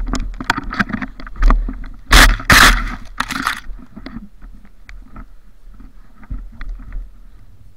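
Crunching and rustling of movement through deep snow and snow-laden brush close to the microphone, with a run of loud scraping bursts between about two and three and a half seconds in, then fainter scattered crunches.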